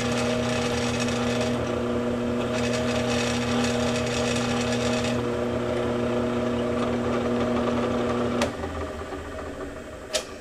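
Drill press running as the bit cuts slowly through a stainless steel gas block on an AR-15 barrel. The motor hums steadily, with a high cutting noise that comes and goes. About eight and a half seconds in the motor stops, and a single sharp click follows near the end.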